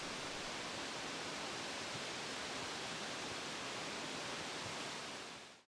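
Steady rushing of falling water from Nachi Falls, a 133-metre waterfall, heard as an even noise with no distinct events. It fades out shortly before the end.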